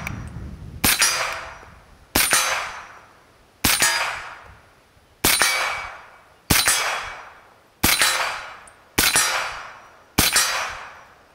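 Inland M30-P, an M1 carbine action in .30 Carbine, fired through a Bowers VERS 9S suppressor: eight single shots fired at a steady pace, about one every one and a half seconds, each followed by a fading echo.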